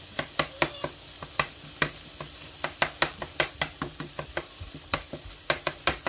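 A cooking utensil clicking and scraping against a skillet as ground turkey is stirred and broken up, with quick irregular clicks about three to four a second over the sizzle of the meat browning.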